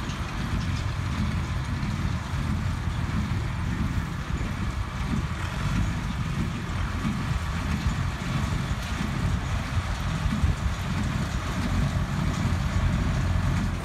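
Tractor engine running steadily in the hay field, heard as a continuous low rumble.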